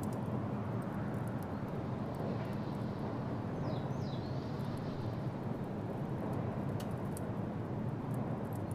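Steady low rushing of stormy weather in a forest, wind and rain, with faint scattered ticks. A bird gives two short falling chirps about four seconds in.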